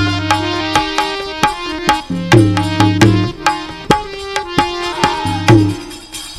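Live Bhavai stage music: a tabla-style hand drum played in a brisk rhythm, its deep bass strokes sagging in pitch, over held melodic notes.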